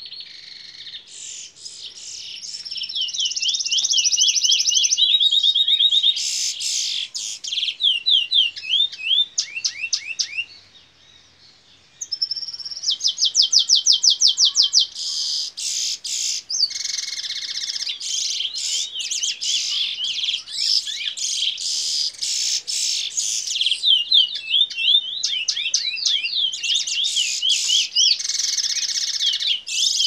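Red siskin × canary hybrid (red mule) singing the bullfinch song it is kept for: long runs of fast trills and quickly repeated down-slurred whistles. There is a pause of about a second and a half near the middle, and then a very fast, even trill.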